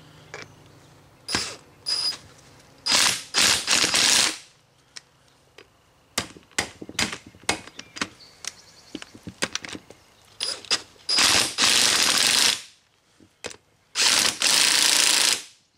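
Power impact wrench hammering in bursts: several short blips, then two longer runs of over a second near the end. Scattered clicks and clatter of tools and parts come between the bursts.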